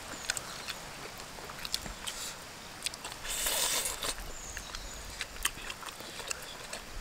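Mukbang eating sounds from two people eating chicken and rice by hand: scattered small clicks of chewing and lip smacking, with a short hiss of breath about a second long a little past three seconds in, the loudest sound.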